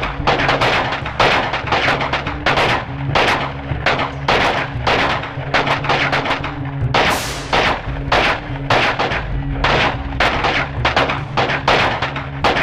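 Battle gunfire: a steady run of sharp rifle shots, about two to three a second, from several guns firing at once.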